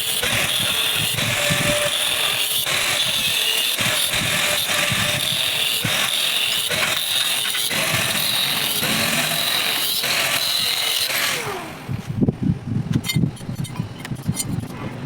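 An electric power tool running, its pitch dipping and recovering as it is pressed into the work, then winding down about eleven seconds in. Irregular knocks and clatter follow.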